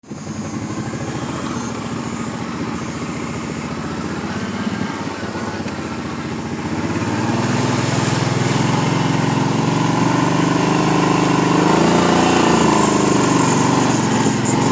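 Kawasaki Brute Force 750 ATV's V-twin engine running as it is ridden, picking up about halfway through with its pitch rising and falling.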